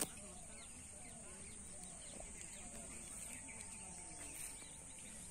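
Faint outdoor ambience with scattered distant bird chirps and a steady high hiss or insect drone, opening with a single sharp click.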